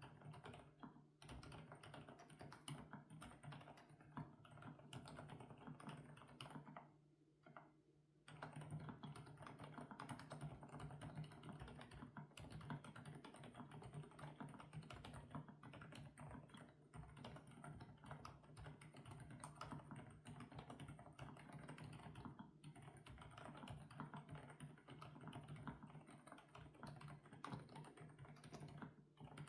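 Fast, continuous typing on an FL-Esports OG98 mechanical keyboard with Kailh Coconut Latte switches, a dense run of key clacks. The typing pauses briefly about seven seconds in.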